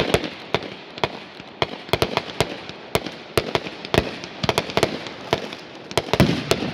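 Fireworks display: aerial shells bursting overhead in a rapid, irregular string of sharp bangs, several a second, with a rumbling haze between them.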